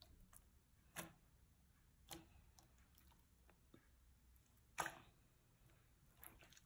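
Slime being handled, giving a few faint, sharp sticky clicks and small pops over near silence, the loudest about two-thirds of the way in.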